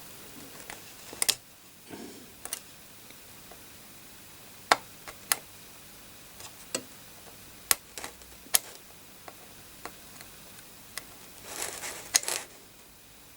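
Small objects handled on a workbench: about a dozen sharp, isolated clicks and light taps spaced irregularly, with a short rustle near the end.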